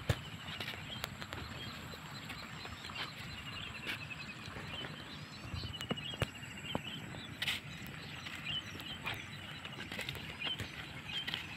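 Short high trilling calls repeated every few seconds from small animals in a rice paddy, over a steady low rustle and scattered clicks of footsteps on a dirt path.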